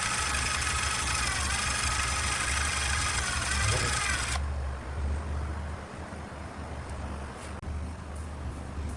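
Workshop machinery running with a steady low hum, most likely the wood lathe's motor. Over it a high whine with many overtones wavers in pitch, then cuts off abruptly about four and a half seconds in, leaving only the hum.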